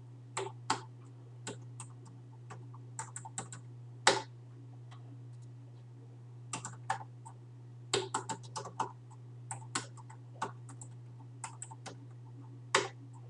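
Keystrokes on a computer keyboard, coming irregularly, singly and in quick runs. A steady low hum runs underneath.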